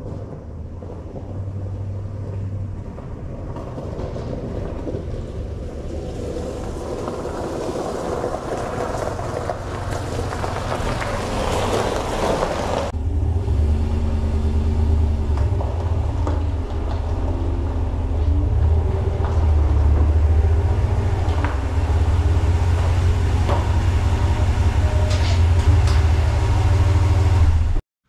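Pickup truck: a noisy sound that grows steadily louder for about twelve seconds, then after a sudden change a steady low engine rumble.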